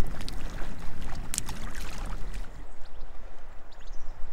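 Lake water splashing and lapping close by, with scattered small splashes and one sharper splash about a second and a half in. The sound drops away suddenly a little past halfway.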